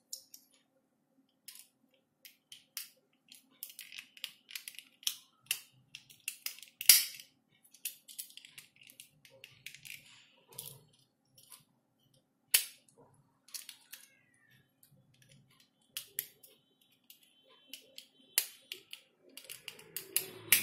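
Small plastic parts of a 20 A SPN wall switch clicking and snapping as they are handled and pressed back together by hand, with light scraping between the clicks; the sharpest snaps come about seven and about twelve and a half seconds in.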